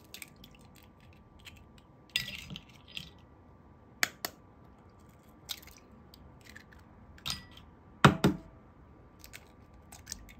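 Eggs being cracked one after another on the rim of a bowl: a series of sharp taps and shell cracks, the loudest a double crack about eight seconds in.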